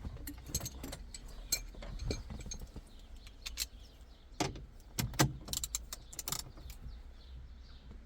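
Metal tools clinking and clicking: a 16 mm socket and ratchet being handled and fitted to the steering wheel nut, with a cluster of sharp clicks in the second half.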